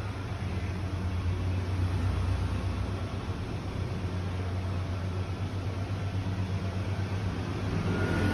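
Steady low hum under an even rushing noise, with no distinct events.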